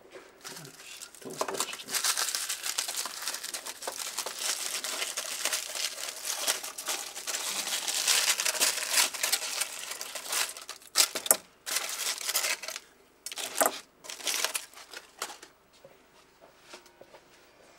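Aluminium foil being unwrapped and crumpled by hand: a continuous crinkling for about nine seconds, then a few shorter rustles before it stops.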